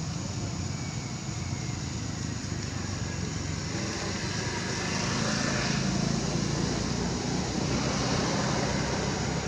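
Steady outdoor background noise with a low rumble, a little louder from about halfway through.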